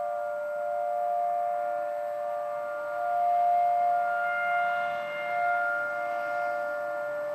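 Outdoor civil-defense warning sirens sounding a steady tone for their weekly test. Two sirens at slightly different pitches blend together, the sound swelling and fading in loudness.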